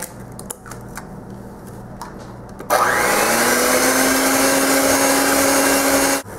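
Electric blender motor switched on about a third of the way in, spinning up with a brief rise in pitch, then running steadily for a few seconds to mix in an egg before cutting off near the end. Before it starts there are a few light clicks and knocks.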